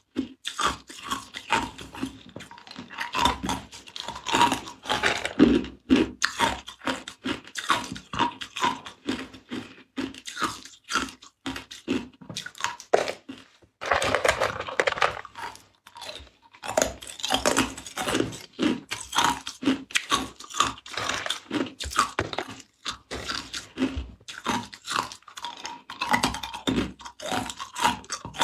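Ice cubes being bitten and chewed, a rapid run of sharp crunches. About fourteen seconds in comes a denser clatter of ice cubes being stirred in a plastic box.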